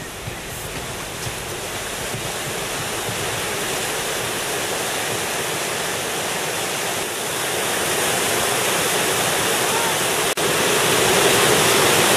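Whitewater river rapid and standing wave rushing steadily, a dense churning roar that grows slightly louder and cuts out for an instant about ten seconds in.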